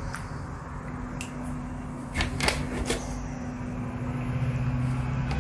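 A steady low mechanical hum, with a metal teaspoon clicking against a ceramic mug a few times about two to three seconds in as milky tea is stirred.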